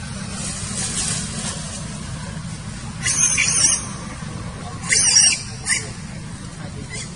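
Monkey giving high, wavering squeals: one lasting nearly a second about three seconds in, then a shorter squeal and a brief one a couple of seconds later, over a steady low rumble.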